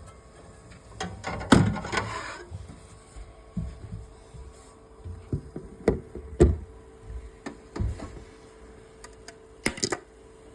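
3D-printed plastic fidget chain clicking and clattering as it is handled: irregular sharp clicks, with a longer rattle about a second and a half in.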